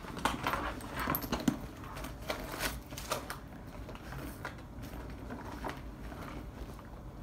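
Irregular clicks, knocks and rustles of objects being handled, busiest in the first three seconds or so and fainter after.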